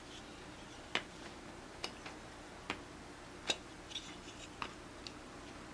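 About six sharp, separate clicks and ticks of a hex driver and small metal screws being worked on a 1/24-scale RC crawler's body.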